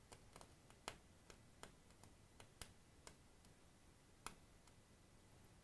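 Near silence with a few faint, scattered clicks, the clearest about a second in and again just past four seconds.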